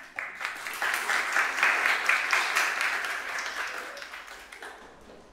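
An audience, mostly children, applauding: the clapping swells within the first second, is loudest around two seconds in, then dies away before the end.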